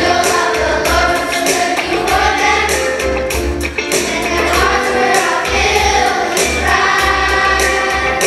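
Children's choir singing a song over an accompaniment with a steady bass line and regular percussion beats.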